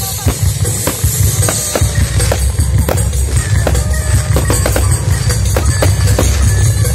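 Aerial fireworks bursting: a rapid, irregular series of booms and crackles over a constant low rumble.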